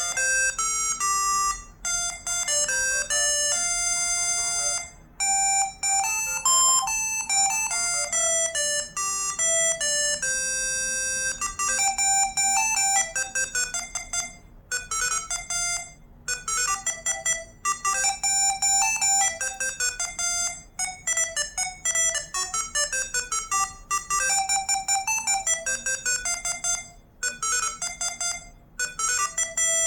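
ZTE V617 mobile phone ringtones playing: synthesized electronic melodies of bright, clean notes. A slower tune with longer held notes changes to a faster, busier melody about eleven seconds in.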